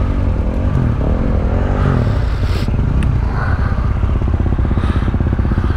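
Yamaha Ténéré 700's parallel-twin engine running, its revs rising and falling over and over, with a few brief clattering knocks.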